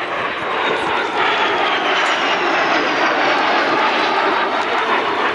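Dassault Falcon 20 twin-engined business jet flying past: a loud, steady jet rush with a high whine that slowly falls in pitch as it passes.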